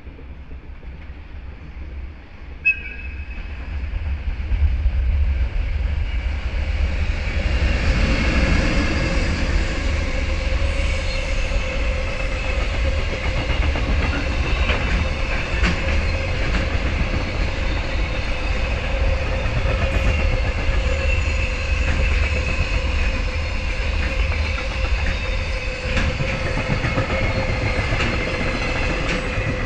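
JR Freight EH500 electric locomotive passing with a container train: a short toot of its whistle about three seconds in, then a heavy rumble of the locomotive and wagons rolling by, with a steady high whine and occasional clicks over the rail joints.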